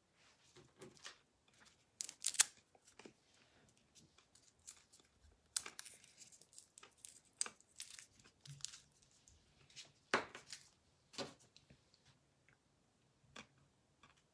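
Handling noise: irregular clicks, taps and short rustling or crinkling sounds, with a handful of louder sharp ones scattered through.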